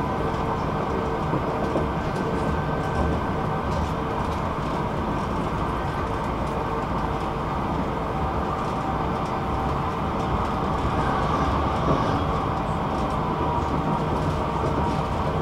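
Electric tram running at speed, heard from inside the car: a steady rolling rumble of wheels on rails with a steady whine held above it.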